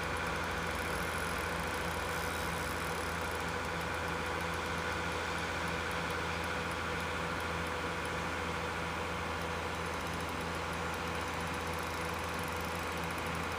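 A steady machine hum with a constant low drone and a few fixed higher tones, unchanging throughout.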